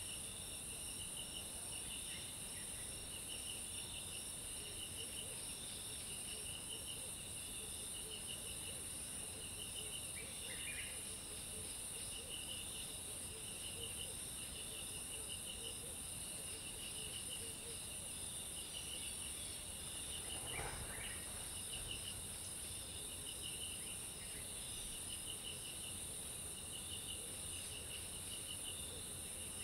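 Steady chorus of insects trilling, with a pulsing trill and a continuous high-pitched buzz. A few brief chirps come through, and about two-thirds of the way in there is one short rising call.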